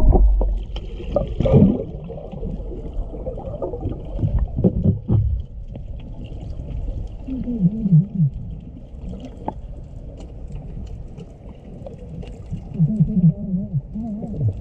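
Underwater sound picked up by a GoPro in its housing while snorkelling: a muffled low rumble of moving water with scattered faint clicks, and twice a short run of falling tones, about eight seconds in and again near the end.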